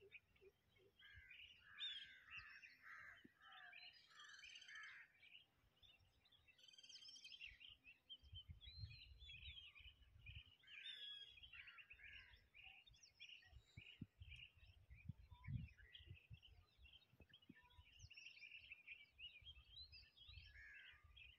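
Faint chorus of many small birds chirping and twittering in quick overlapping calls, with an irregular low rumble underneath.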